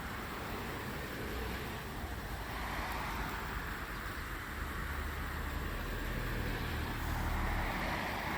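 Road traffic noise: a steady tyre and engine rush from passing cars, swelling and easing slowly.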